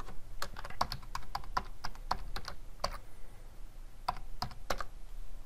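Typing on a computer keyboard: a quick run of keystrokes for about three seconds, a short pause, then a few more keys near the end.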